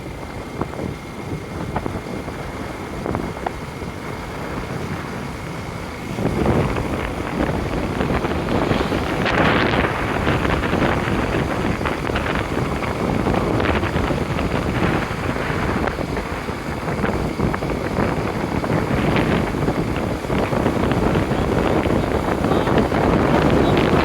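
Wind rushing over the microphone of a moving motorcycle, with vehicle noise underneath; it grows louder about six seconds in.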